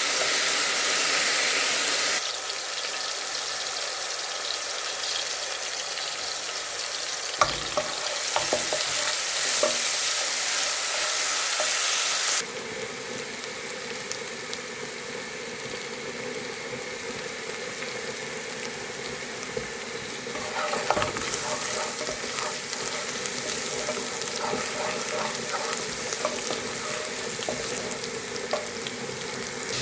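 Food sizzling as it fries in a pan, with the occasional clink and scrape of a spoon stirring it. The sizzle drops abruptly in level twice, about two seconds in and again near the middle.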